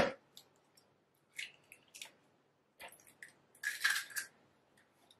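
A hen's egg being broken open by hand over a plastic mixing bowl: a few faint clicks and taps, then near the end a louder crackle of the shell being pulled apart and a wet squish as the egg goes in.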